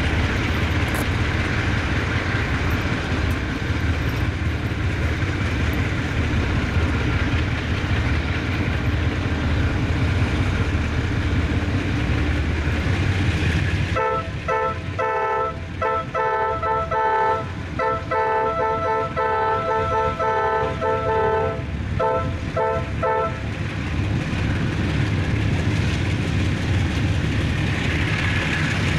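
A lashup of diesel-electric freight locomotives running with a steady low rumble as the train approaches. About halfway through, the lead locomotive's multi-chime air horn sounds in a long series of blasts with short breaks, ending in a few quick toots, before only the engines are heard again.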